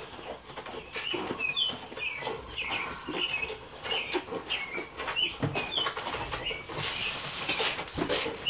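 Birds chirping in many short, quick calls, with soft rustles and light taps from a goat being wiped down on a wooden milking stand.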